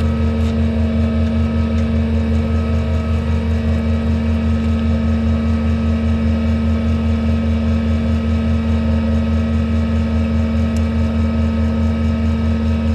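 6.6-litre Duramax diesel running steadily with the PTO engaged, driving an Ingersoll Rand hydraulic air compressor that is pumping up air pressure. A deep, even hum with a slight pulsing beat.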